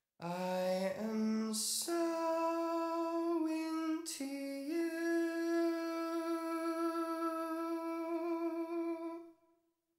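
A lone man's voice singing a wordless line without accompaniment: a few short notes stepping upward, a breath, then one long held note from about five seconds in that stops near the end.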